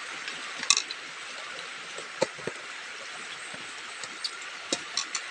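Steady rush of a river flowing over stones, with a few sharp clicks and taps scattered through it, the loudest near the start.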